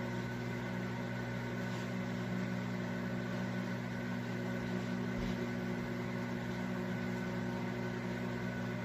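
Toshiba countertop microwave oven running with a steady electrical hum, its turntable turning.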